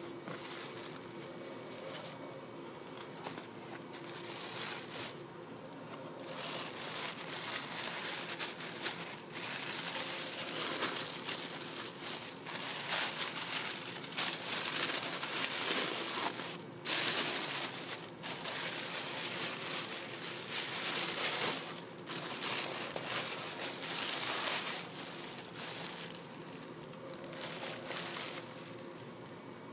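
Tissue paper crinkling and rustling as hands pull it aside inside a cardboard box. It comes in irregular bursts, sparse at first, busiest and loudest through the middle, then easing off near the end.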